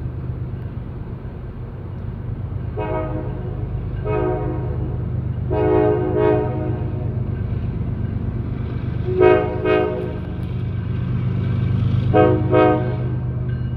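Freight locomotive's Nathan K5LA five-chime air horn sounded in a string of short blasts, several in quick pairs, over the steady low rumble of the diesel locomotive.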